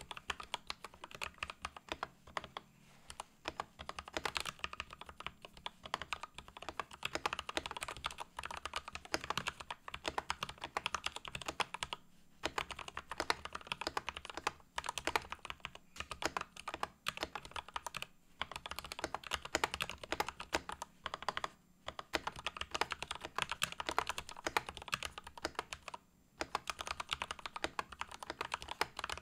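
Typing on a Royal Kludge RK100 mechanical keyboard fitted with hand-lubed Gateron Red linear switches and stabilizers greased with dielectric grease: a dense, continuous run of keystrokes broken by a few short pauses.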